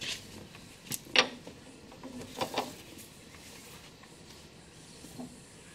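Värnamo metal shaper turned over by hand with its crank handle, its motor not running: a few scattered light metallic clicks and clunks, the loudest about a second in and a pair about two and a half seconds in.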